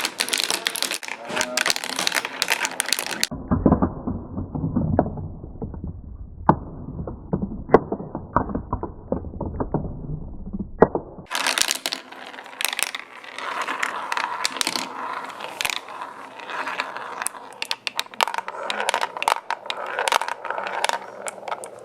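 Glass marbles rolling and clattering down a plastic marble run track in a steady stream of quick clicks and rattles. From about three seconds in to about eleven seconds the sound turns muffled and rumbling, with scattered clicks, before the bright clattering returns.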